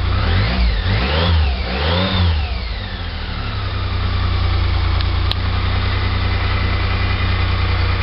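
BMW K75 three-cylinder engine blipped three times in quick succession, the last rev falling back more slowly, then settling to a steady idle. The revs are part of a charging check: the generator holds the battery at about 14 volts.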